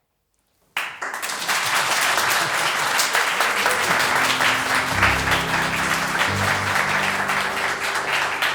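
Audience applause breaking out suddenly after a moment of silence and continuing. About halfway through, low sustained musical notes start under the clapping.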